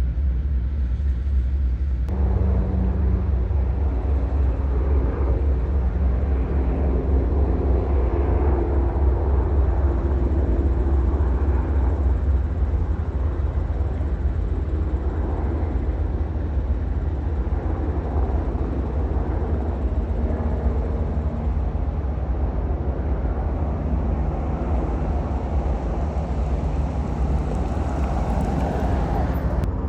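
Steady, heavy low engine rumble, with faint humming tones that drift slowly in pitch above it.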